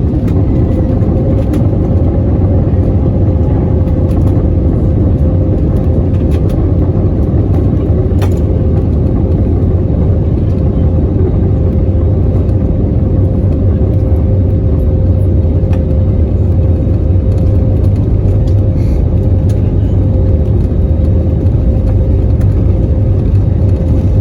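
Airbus A320neo's geared turbofan engines spooling up to takeoff thrust, heard from inside the cabin. The sound climbs in level and pitch at the start, then holds as a steady high whine over a heavy, noisy rumble through the takeoff roll.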